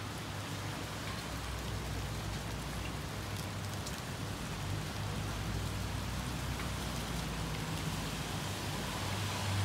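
Steady storm rain falling on rooftops, an even hiss, with a low steady hum underneath.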